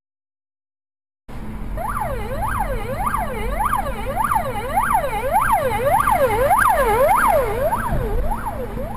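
Emergency-vehicle siren in a fast up-and-down yelp, about two sweeps a second, cutting in abruptly about a second in, over a low engine and road rumble. It eases slightly near the end.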